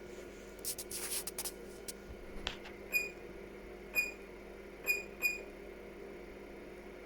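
Four short, high electronic beeps, roughly a second apart with the last two close together, after some faint handling rustle and a click, over a steady low hum. They fit the keypress beeps of a bench power supply as its set voltage is stepped up.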